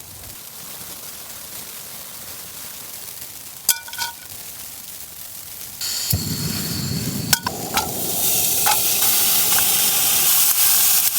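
Burger patties frying in a pan. A faint hiss and a couple of sharp clinks come first; about six seconds in the sizzling jumps up, and from about eight seconds it is loud and steady.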